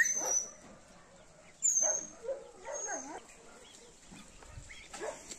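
A dog giving short, scattered cries, with thin high chirps over them.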